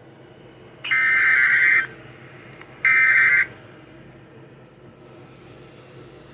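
Two bursts of Emergency Alert System digital header data, the harsh buzzing tones that open an alert: the first about a second long, the second about half a second, a second apart. Faint broadcast hiss fills the gaps.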